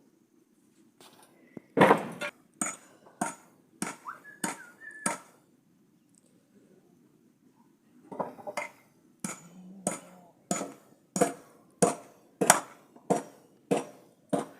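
A series of sharp knocks with a slight metallic ring, about one and a half a second. There are six, a pause of about three seconds, then a second run of about eleven.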